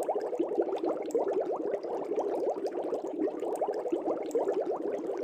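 Air bubbles streaming through aquarium water in a steady, dense bubbling: many small quick blips a second, each rising slightly in pitch.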